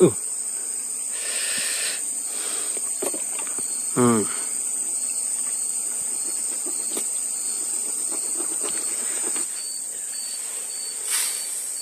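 Insects shrilling in a steady high-pitched drone. About four seconds in, a short pitched call slides quickly downward.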